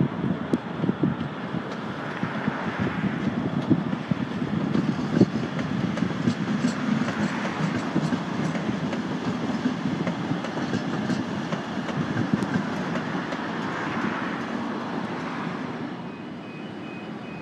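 MBTA Green Line light rail train running past on the track: a steady rumble of wheels on rail with a few sharp clicks in the first seconds, dropping in level near the end.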